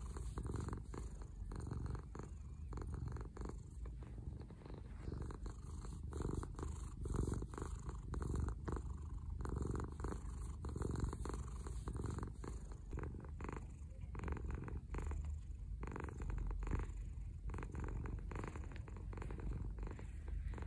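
Domestic cat purring steadily right at the microphone while its head is being stroked: a contented purr.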